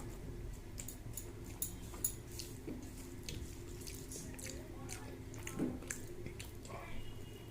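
Close-up wet chewing and lip-smacking of a person eating rice and fish, with many small sharp clicks and squishes at irregular moments. A steady low hum runs underneath.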